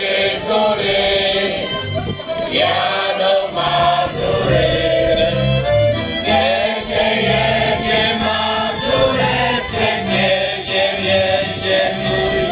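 A large mixed choir of men's and women's voices, members of folk song ensembles, singing a song together, sustained phrases over a steady lower part.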